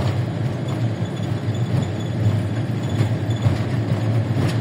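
Steady low drone of a vehicle's engine and road noise while driving.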